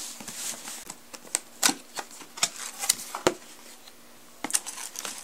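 Cardboard box being opened by hand: a scattered run of sharp clicks and taps as the flaps are pulled free and folded back, over a light rustle of cardboard.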